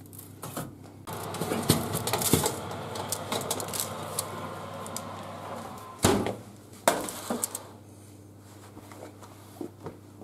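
A metal baking tray clanking as it is pulled out of the oven and handled, with a loud knock about six seconds in and another a second later, then light clinks as it is set down. Before the knocks, a steady rushing noise comes from the open oven.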